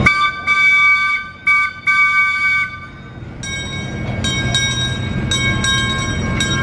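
Train horn sounding a chord in three blasts, a long one, a short one and another long one, then a fainter, steadier chord with a low rumble and regular light clicking.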